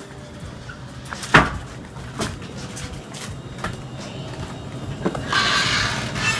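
Wooden-framed screen door being opened and handled: a few sharp wooden knocks and clacks, the loudest about a second and a half in, then a short rush of noise near the end as it swings.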